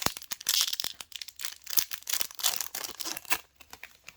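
Foil trading-card booster pack wrapper crinkling and tearing as packs are handled and opened, with cards flicked and slid in the hands: irregular crackles and sharp clicks, easing off near the end.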